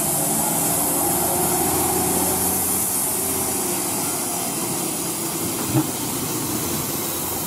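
Heavy diesel engine of a loaded Hino dump truck running under load as it climbs past close by, with a steady hiss over it. There is a single short knock about six seconds in.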